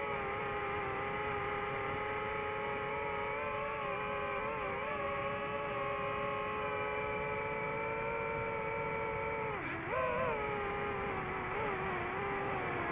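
Quadcopter drone's motors and propellers whining steadily in several tones over a hiss. About ten seconds in the pitch dips sharply and climbs back as the motors throttle down and up again.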